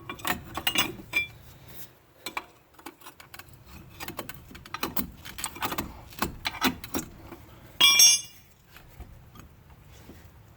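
Irregular metal clinks and knocks as a brake caliper and bracket are worked loose from a brake rotor that the pads are clamping. About eight seconds in there is one loud, ringing metal strike.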